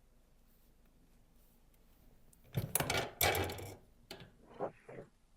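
Handling noise on a chiropractic treatment table: two louder clattering, rustling sounds about halfway through, then a few soft knocks.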